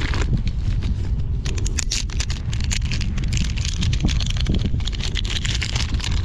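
Wind buffeting the microphone in a steady low rumble, with irregular splashes and slaps of sea water against a kayak.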